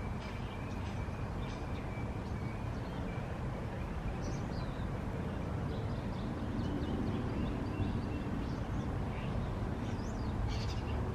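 Outdoor ambience: a steady low rumble with scattered short bird chirps throughout.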